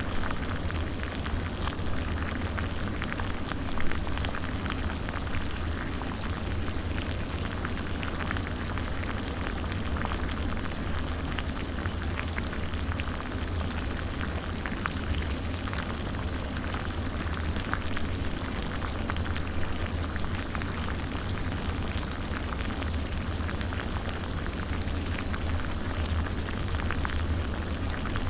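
Water boiling in a small pot: a steady bubbling of many small pops over a low rumble, with one louder pop about four seconds in.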